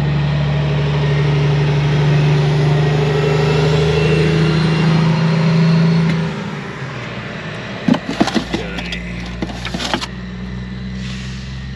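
A vehicle engine runs steadily at idle, then drops away about six seconds in. After it come a few sharp metallic clatters and scrapes as the steel tray is slid out of a 12-volt Travel Buddy oven.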